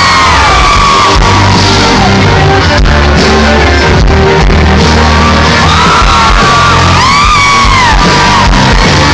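Live country band playing loudly through a large concert sound system, with a crowd shouting and whooping over it.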